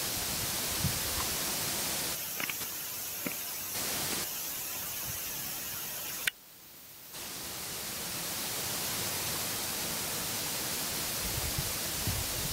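Steady hiss of a handheld camera's microphone recording outdoors, with a few faint ticks of handling. About six seconds in, a sharp click, then the sound drops out for about a second before the hiss fades back up.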